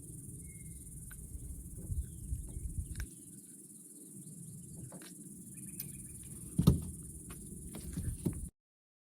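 Steady drone of insects in the background, with scattered knocks and handling noise and one loud thump about two-thirds of the way through. The sound cuts off suddenly near the end.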